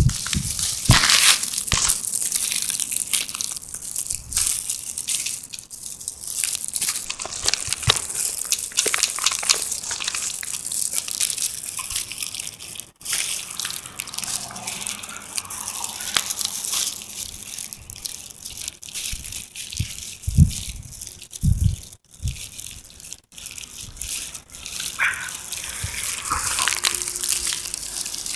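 Steady rustling hiss close to the phone's microphone, shot through with small crackles, with a couple of low thumps about twenty seconds in: handling or wind noise from filming while walking.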